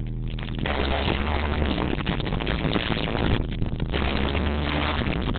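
Loud live concert music with a heavy steady bass, recorded on a phone that overloads, so it comes out distorted and muffled.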